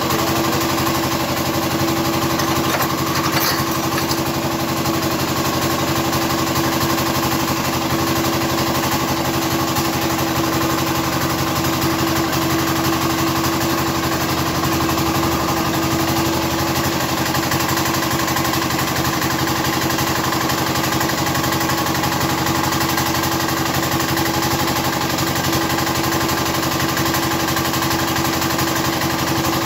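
Platinum 7.5 hp single-cylinder diesel engine running steadily at a constant speed.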